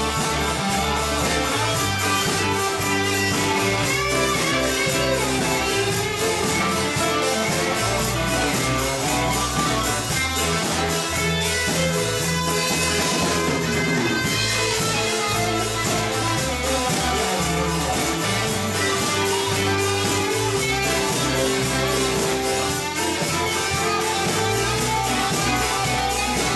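Live rock band playing: electric guitars over a bass line and drums with a steady cymbal rhythm.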